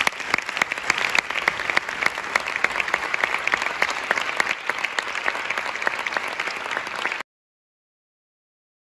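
Audience applauding, a dense, irregular patter of clapping that cuts off suddenly into dead silence about seven seconds in.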